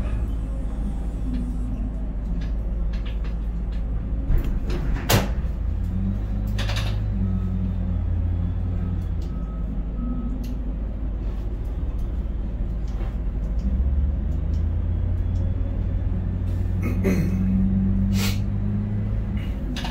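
Container crane machinery heard from inside the operator's cab: a steady low drone from the hoist and trolley drives, whose hum shifts in pitch as the spreader is raised and the trolley travels. A few sharp clicks come through, about five seconds in and again near the end.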